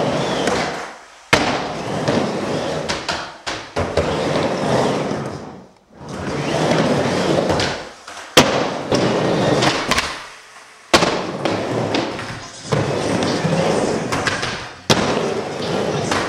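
Skateboard wheels rolling on a miniramp, the rolling swelling and fading with each pass across the ramp, broken by a few sharp clacks of the board hitting the ramp and coping.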